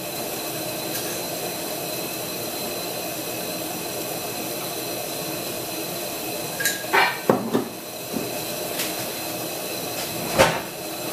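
A pancake sizzling in a non-stick frying pan, a steady hiss. About seven seconds in there is a short clatter of pan and utensil as the pancake is flipped, and a single knock near the end.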